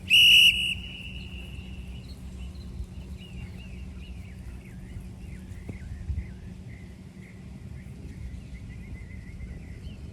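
A single loud, high, steady beep lasting about half a second, the interval-timer signal that marks the start of a 20-second work interval. After it come faint, high, wavering chirps over low steady outdoor noise.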